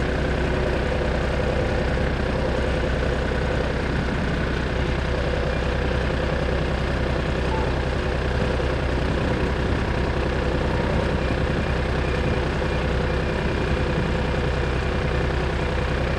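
An engine idling steadily, a constant low hum that neither rises nor falls.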